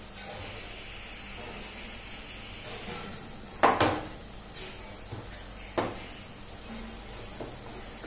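Kitchen knife striking a cutting board while cutting potatoes: a few sharp knocks, the loudest about three and a half seconds in. Underneath, a steady faint hiss of onions frying in the pot.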